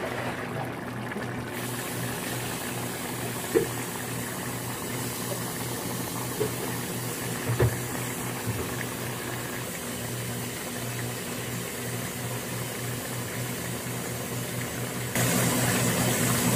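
Pork and potato curry simmering in a large open pot: a steady bubbling hiss with a few faint pops, growing louder near the end.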